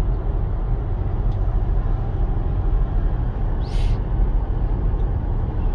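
Steady low rumble of road and engine noise inside a moving car, with a brief hiss a little past halfway.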